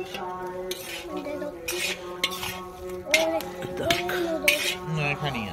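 A metal spoon scraping and clinking against a kadhai while stirring thick grated-carrot halwa, in a series of strokes about every half second to a second.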